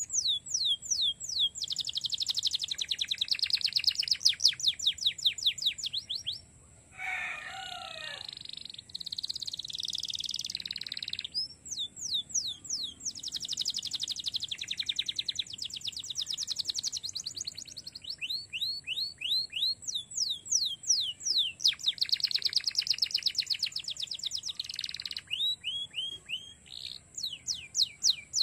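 Domestic canary singing a long, varied song: fast trills of rapidly repeated, falling high notes, broken by a short lower warbling phrase about seven seconds in.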